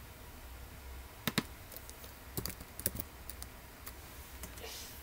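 Scattered clicks of a computer keyboard and mouse as a short word is typed and menu items are clicked.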